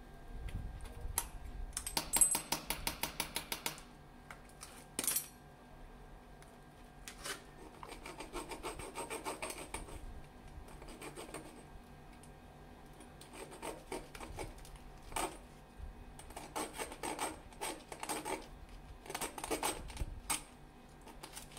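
Hand tools tapping and scraping inside a hole in a cement-plastered wall around air-conditioner copper pipes: a quick run of light taps about two seconds in, then scattered clicks and scraping of metal on cement and pipe.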